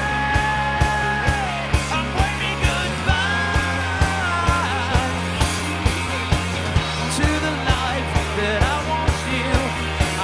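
Pop/rock band playing live: drums keep a steady beat of about two hits a second under sustained bass and guitars, with long held melody notes over the top.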